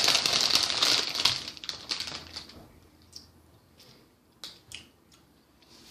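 Crinkly, crackling rustle of things being handled, fading out about two seconds in, followed by a few light clicks.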